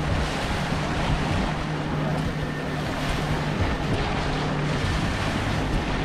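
Engine of a moving vehicle running steadily, a low even hum under loud rushing wind on the microphone.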